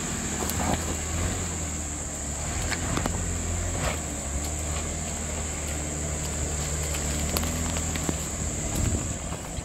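Jeep Wrangler JK engine running steadily at low revs as it crawls up a rutted dirt track, with a few faint clicks from stones and sticks under the tyres.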